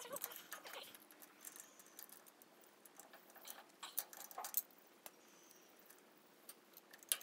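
Faint, scattered clicks and light metallic clinks of pliers working a hydraulic hose fitting, a few seconds apart.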